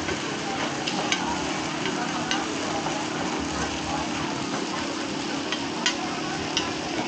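Food frying in hot oil with a steady sizzle, with a few scattered clicks of a utensil against the pan.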